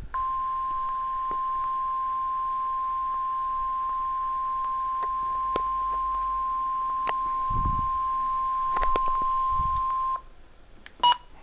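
NOAA Weather Radio 1050 Hz warning alarm tone playing through a Midland HH54 handheld weather radio's speaker. It is one steady tone held for about ten seconds that cuts off abruptly, with faint clicks of static over it. A short beep follows about a second later.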